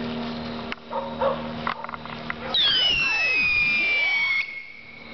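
Firework on the grass giving a shrill whistle that falls steadily in pitch for nearly two seconds, about halfway through, then cuts off sharply. Before it there is a steady pitched drone and a few small crackles.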